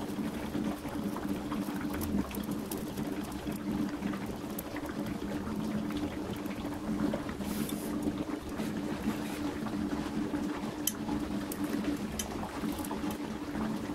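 Gas brazing torch flame burning steadily on steel square tubing, a steady rushing hiss with a low hum under it, heating the joint for brazing. A few faint clicks now and then.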